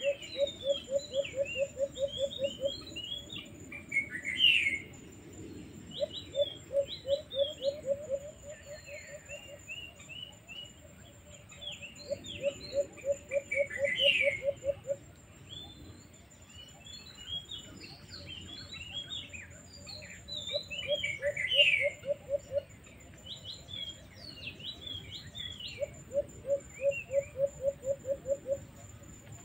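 Birds calling: about five times a low, rapid series of pulsing notes runs for two to three seconds, over scattered high chirps from smaller birds. A thin, steady high tone runs beneath throughout.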